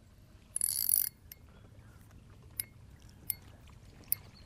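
Spinning reel cranked in a short burst about half a second in, a brief whirring of the reel's gears, then a few faint clicks as a small bluegill is brought in on light line.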